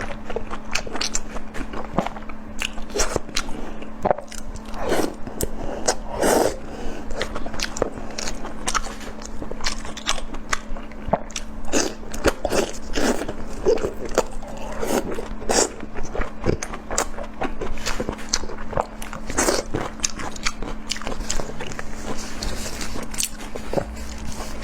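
A person eating close to the microphone, biting and chewing: a dense, irregular run of short clicks and mouth smacks.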